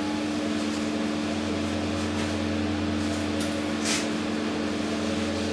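Bossweld MIG 156 welder running idle just after being switched on, giving a steady fan hum with a low drone. A brief rustle about four seconds in as welding gloves are pulled on.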